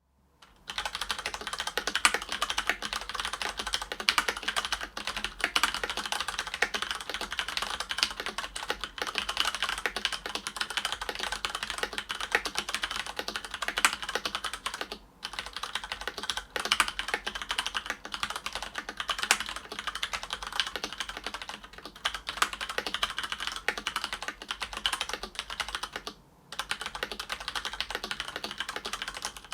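Filco Majestouch 2 mechanical keyboard with stock Cherry MX Brown switches, broken in over ten years of use, being typed on quickly and continuously: a dense stream of key clacks with a few short pauses.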